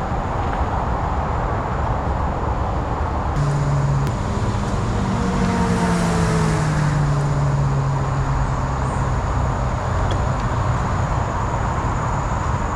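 Steady rushing noise of wind on the microphone and bicycle tyres rolling over a rough concrete path. From about three seconds in, an engine hum slides slowly down in pitch for several seconds, like a motor vehicle passing by.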